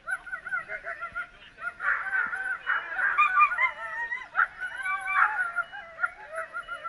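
Excited dogs yelping and whining as they wait to run, many short high calls overlapping, growing thicker and louder from about two seconds in.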